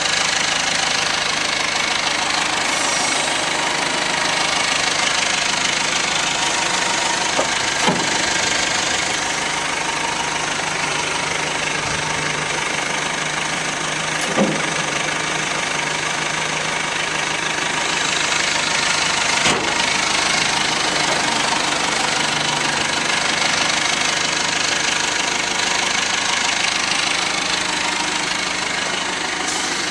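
Terex 760 backhoe loader's Perkins diesel engine running steadily, with three short sharp knocks scattered through.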